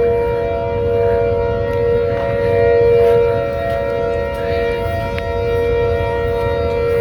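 Outdoor tornado warning siren sounding a steady single-pitched tone, swelling and fading in loudness every few seconds. The sirens came on as soon as a tornado warning was issued.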